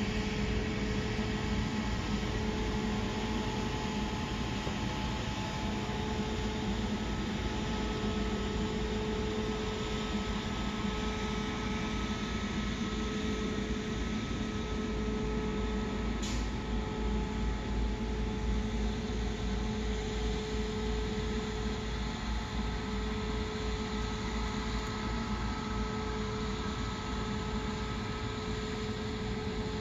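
Steady mechanical drone with a constant pitched hum over a wash of background noise, unchanging throughout; a single short click about sixteen seconds in.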